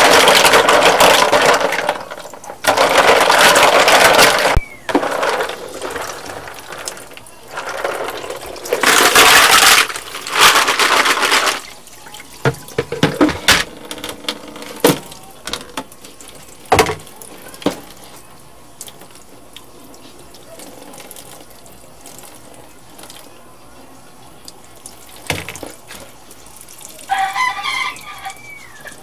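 Hands washing mussels in a plastic basin of water in a stainless steel sink: loud splashing and sloshing in several bursts during the first half, then the shells clicking and clattering, and after that only a thin tap stream running quietly.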